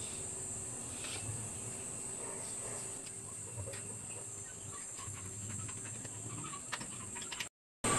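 Quiet background with a steady high hiss, a faint low hum and a few faint clicks toward the end. The sound drops out completely for a moment just before the end.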